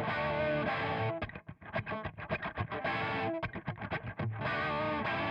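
Background music led by a distorted electric guitar: held chords alternate with runs of quick picked notes.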